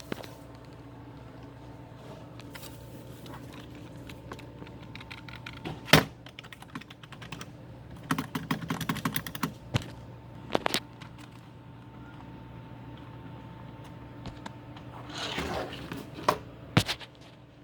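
Keys being pressed on a computer keyboard: scattered clicks, a louder knock about six seconds in, and a quick run of typing about eight seconds in, over a faint steady hum.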